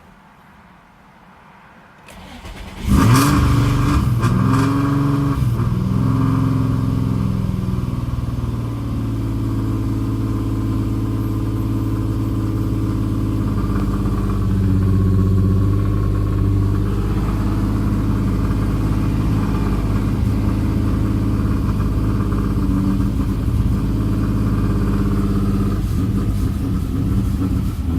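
Infiniti G35's 3.5-litre V6, with a loud aftermarket exhaust and long-tube headers, starts up about three seconds in, flares, then settles into a steady idle. The engine is logging a P0300 random/multiple-cylinder misfire code.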